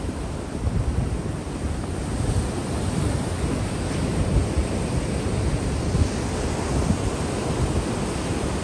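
Rough sea surf breaking and washing in white foam against a stone seawall, with wind buffeting the microphone in uneven low gusts.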